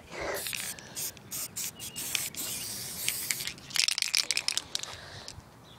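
Aerosol spray paint can hissing in a series of short bursts, followed a little after halfway by a quick burst of rattling clicks.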